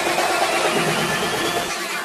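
Electronic dance music build-up with a rising sweep, the bass cutting out near the end.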